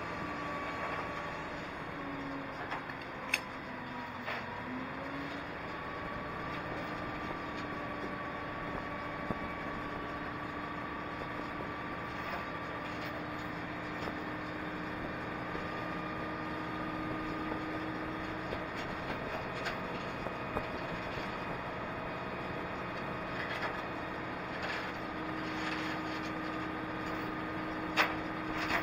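Grove hydraulic crane's diesel engine running steadily with a hydraulic whine whose pitch dips and shifts a few times as the hoist works, heard from inside the operator's cab. A few sharp clicks stand out.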